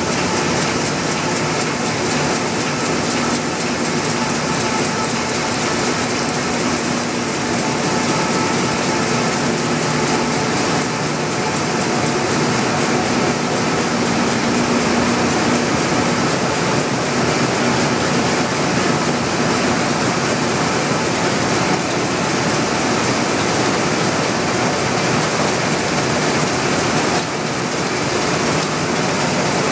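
2005 Komori Lithrone sheet-fed offset printing press running: a steady, dense mechanical clatter with fast, even ticking.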